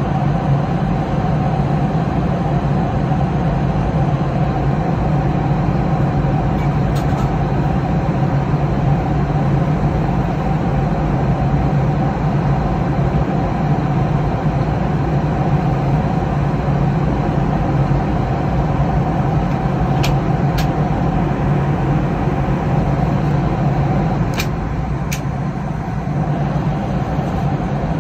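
Steady cabin noise of an airliner in cruise flight: an even rushing sound over a low hum. Two pairs of light clicks come about two-thirds of the way through.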